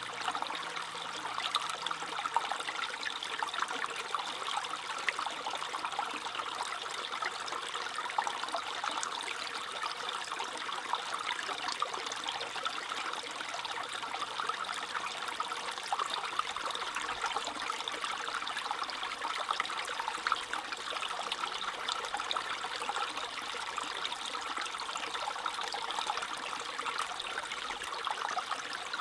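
Brook water trickling steadily, an even rush dotted with many small splashes.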